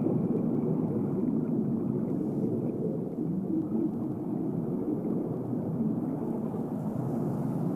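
A steady low rumble that holds the same level throughout, with no distinct events.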